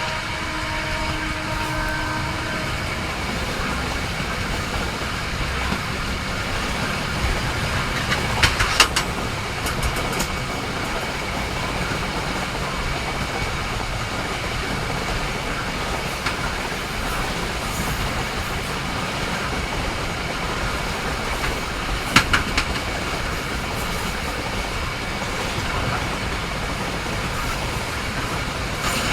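Train running along the track with steady wheel-and-rail noise and a faint constant high whine. The last of a train horn dies away in the first few seconds, and sharp clacks of wheels over rail joints come about nine seconds in and again about twenty-two seconds in.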